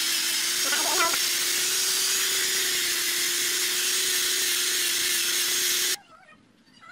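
Angle grinder with a sanding disc running steadily with a constant whine while it sands a wooden furniture leg, the disc scrubbing the wood. The sound cuts off suddenly about six seconds in, leaving quiet.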